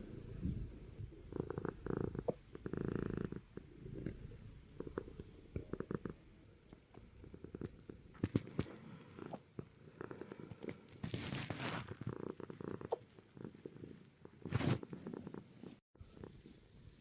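British Shorthair cat purring, broken by small sharp hiccups. Two louder rushing noises come about eleven and fifteen seconds in.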